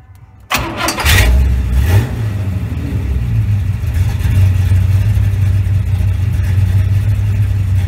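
A car engine started with the ignition key: it fires about half a second in, revs briefly as it catches, then settles into a steady idle.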